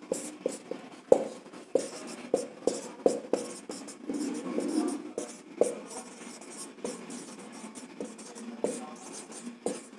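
Handwriting: short taps and scratches of a writing tip on a surface, one or two strokes a second, with a longer scratchy stroke about four seconds in.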